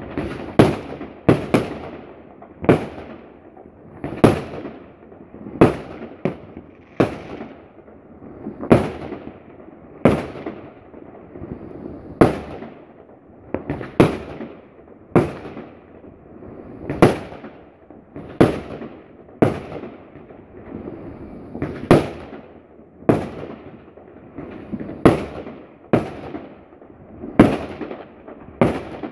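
Aerial fireworks bursting in steady succession, about one sharp bang a second, with a hiss and crackle between the bangs.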